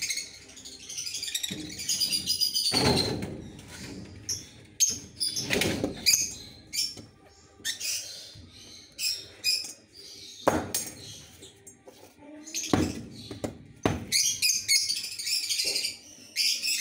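Lovebirds chirping and twittering in quick high bursts, over handling noises from cage cleaning: several loud knocks and some rustling.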